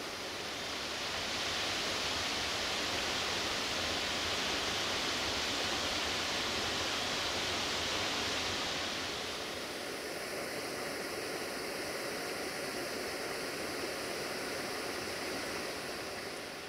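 Steady rushing of flowing river water, with a change in tone about nine seconds in.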